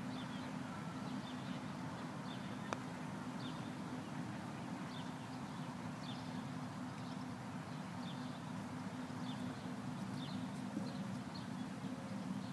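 A single crisp click of a putter striking a golf ball, about three seconds in. Behind it runs a steady low hum and faint, short high chirps repeating every second or so.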